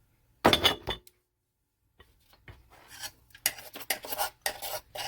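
Electric grinder being handled after grinding sugar to powder: a loud clatter about half a second in as it is opened, then a string of short scraping and clinking sounds against its stainless steel bowl.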